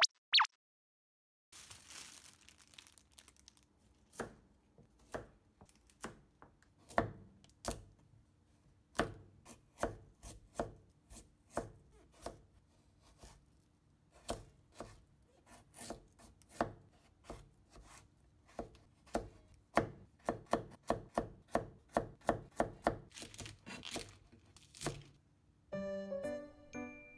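Kitchen knife slicing a Hino-na turnip on a plastic cutting board: a series of sharp knife strokes striking the board, spaced out at first, then quicker runs of about three chops a second.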